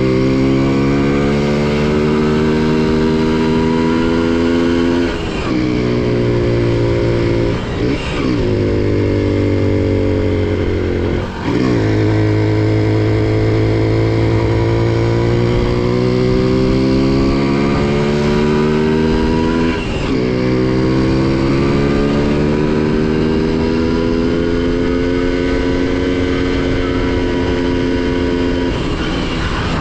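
Honda CDI-100 motorcycle's single-cylinder four-stroke engine and exhaust running steadily under throttle. The pitch climbs slowly and is broken four times by a brief dip in pitch and loudness, as the throttle eases off and picks up again.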